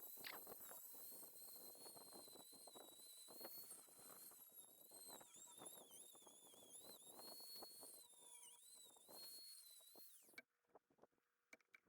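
Near silence: faint background with a thin, high, wavering whine and a few faint ticks, cutting out to dead silence near the end.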